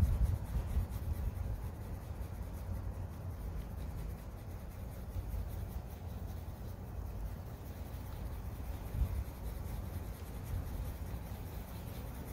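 Fine-tip ink pen scratching continuous small circles onto watercolor paper, over a steady low rumble.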